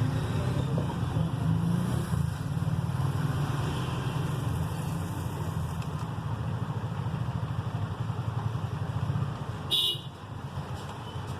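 Steady low background rumble, with one short high-pitched toot about ten seconds in.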